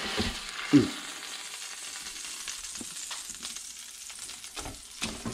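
Hot bacon grease sizzling steadily in a frying pan around a browned roast of black bear as the meat is lifted out, with a loud knock about a second in and a few light knocks of a fork and cookware later on.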